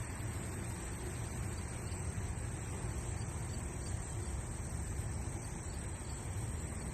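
Steady outdoor background noise: an even low rumble with a hiss over it, with no distinct events.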